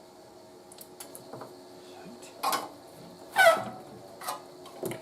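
Hands working on an old radio's chassis and connector: light clicks and knocks, with a short squeak falling in pitch about three and a half seconds in as the loudest sound.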